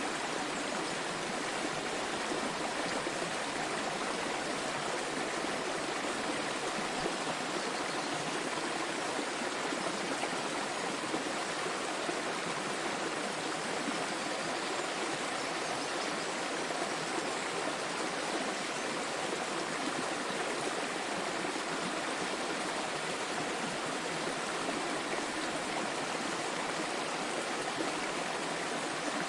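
Small waterfall splashing and flowing steadily, an even rush of water with no breaks.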